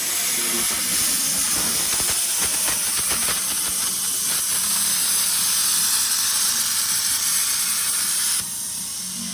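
Plasma cutter cutting through 5 mm sheet metal: a loud, steady hiss with crackling in the first half, which cuts off suddenly near the end.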